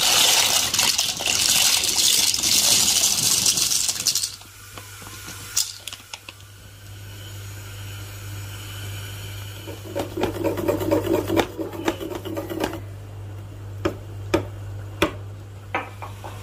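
Water running for about four seconds, then stopping. After it, light scattered clicks and knocks over a low steady hum.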